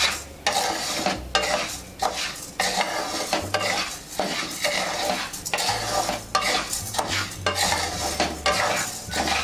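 Wooden spatula stirring dry sabudana pearls and samo rice in a nonstick kadhai as they dry-roast, the grains rattling and scraping against the pan in repeated strokes, about two a second.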